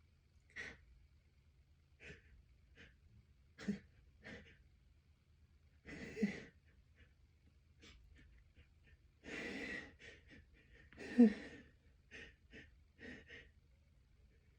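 A person's short, catching gasps and breaths while holding back a sneeze, with a longer breath about nine seconds in and a sharper, louder gasp just after eleven seconds.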